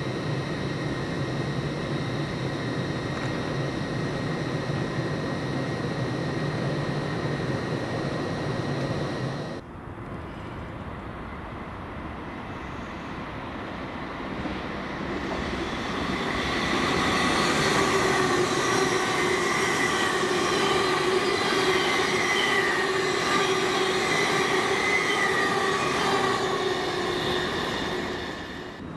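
LNER express trains. First a steady hum with a thin high whine, then, after an abrupt cut, a train that grows louder and runs past with a whine in several steady tones, fading away near the end.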